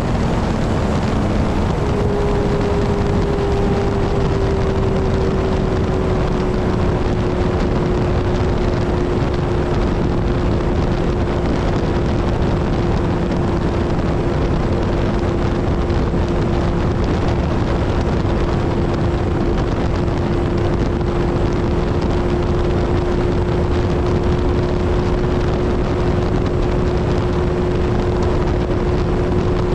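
Kawasaki Z1000 inline-four motorcycle engine cruising steadily at highway speed; its note eases a little lower in the first few seconds, then holds. Heavy wind rush over the microphone.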